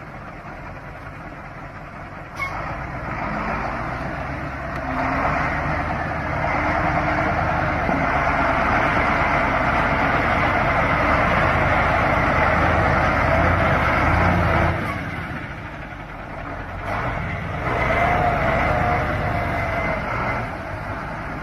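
KamAZ truck's diesel engine running hard under load as the truck pushes through broken river ice and water. It gets louder a couple of seconds in, eases off about fifteen seconds in, then picks up again a few seconds later.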